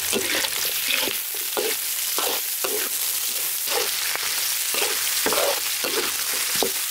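Sliced shallots and ginger sizzling in hot oil in a large metal wok, while a spatula scrapes and knocks against the wok in repeated strokes, about one or two a second, as they are stirred.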